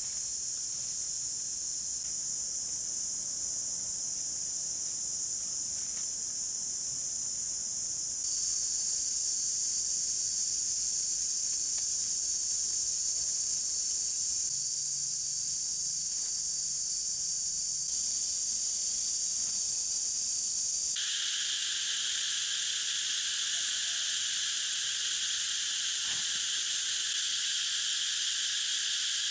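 Steady, high-pitched chorus of forest insects, changing abruptly in pitch and loudness twice; a lower second insect voice joins about two-thirds of the way through.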